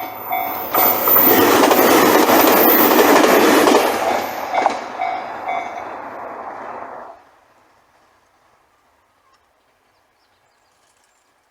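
A level-crossing warning bell dings about twice a second, then a diesel train passes close by, loud for about three seconds. The train fades away and the sound drops off sharply about seven seconds in, leaving near silence.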